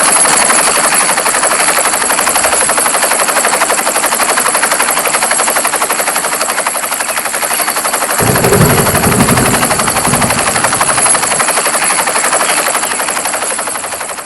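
Small RC toy helicopter's electric motor and rotor running: a loud, dense rapid rattle with a thin high whine. A deeper thrumming joins for about two seconds past the middle, and the sound fades near the end.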